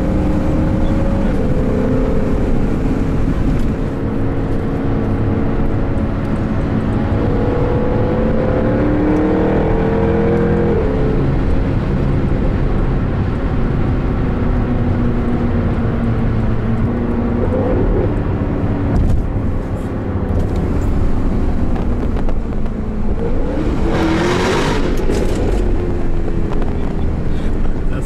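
Jaguar F-Type R's supercharged 5.0-litre V8 under way, heard from inside the cabin, its note climbing and dropping back as it accelerates and shifts through the gears. A loud rushing burst about three-quarters of the way through.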